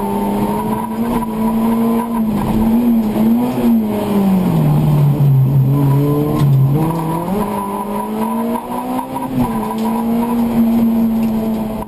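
Slalom race car's engine heard from inside the cabin, held at high revs. About four seconds in the revs drop as the car slows through a cone chicane, and they climb back about seven seconds in.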